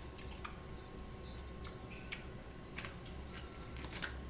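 Light scattered clicks and small knocks of a plastic toy car being handled, a couple of sharper clicks near the end, over a low steady hum.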